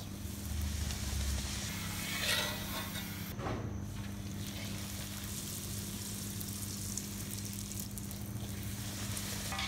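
Hot oil sizzling quietly as a poori deep-fries in a kadai, with a couple of brief noises about two and three and a half seconds in as the slotted spoon turns it.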